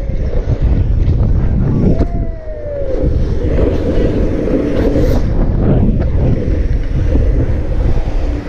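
Steady low rumble of wind buffeting an action camera's microphone while riding along a road, mixed with road noise, with a short falling whine about two seconds in.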